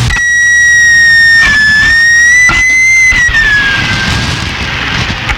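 A loud, wavering whistle tone with overtones coming through a CB radio receiver. It drifts lower and fades into radio static near the end.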